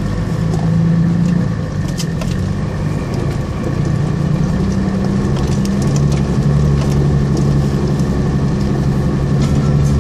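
A 4x4's engine droning, heard from inside the cab as it drives slowly along a rough gravel track, with scattered clicks and rattles from stones and the bodywork. The engine note gets louder and shifts in pitch about four seconds in.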